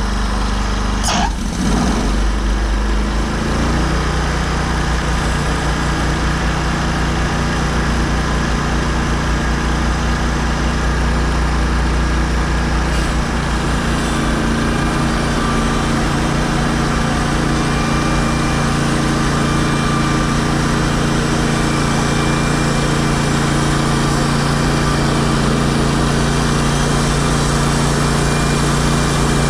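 Portable band sawmill's engine running steadily. About a second in there is a brief falling whine, and the engine note changes about three seconds in.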